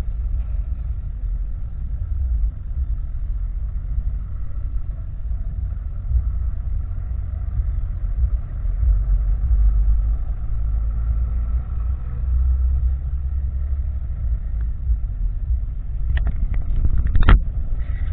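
Honda CG Titan 160's single-cylinder engine idling through an aftermarket exhaust, a steady low rumble. A few sharp clicks come near the end.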